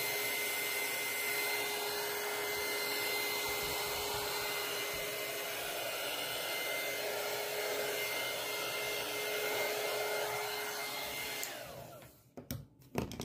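Electric heat gun blowing hot air with a steady whine over its fan noise, heating vinyl wrap to soften it. It is switched off about 11 seconds in and winds down, followed by a few light knocks near the end.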